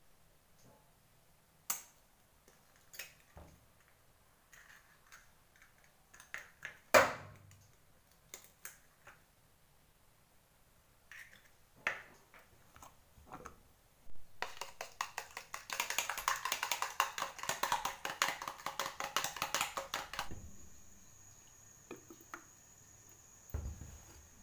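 Eggs being cracked and handled over a plastic tub, scattered taps and knocks with one louder knock, then about six seconds of rapid clicking as the eggs are beaten in the plastic tub. In the last few seconds a faint steady hiss of cooking oil heating in a steel wok.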